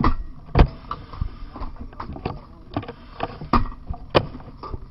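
Irregular knocks and thuds of firefighting gear and debris being moved about during overhaul. The louder knocks come about half a second in and twice near the end.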